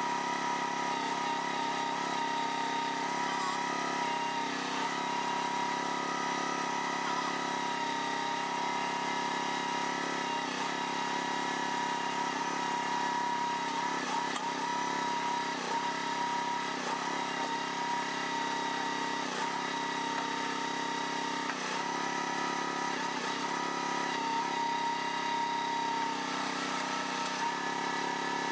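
A machine's engine running steadily at constant speed, with a steady high whine over a lower drone and no change in pitch.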